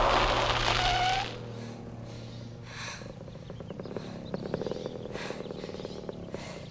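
A small dirt bike skids to a stop in a loud burst of noise lasting about a second. Its engine then idles with a rapid putter.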